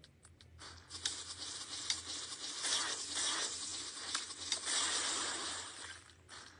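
Soft rustling and scattered light clicks as a kitten paws at a smartphone screen held in a person's hands.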